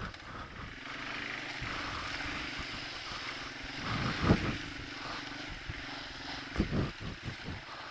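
Single-cylinder four-stroke engine of a 1989 Yamaha Moto 4 250 ATV running steadily under way, with a couple of short low thumps about four and six and a half seconds in.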